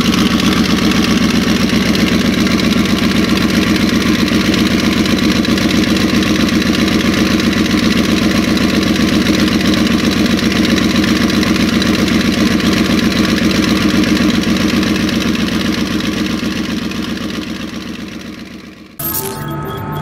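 Twin Mercury Racing QC4v 1100 twin-turbo V8 sterndrive engines idling steadily through wet exhaust tips that spit water. The engine sound fades out near the end, and a burst of music with a boom starts suddenly just before the end.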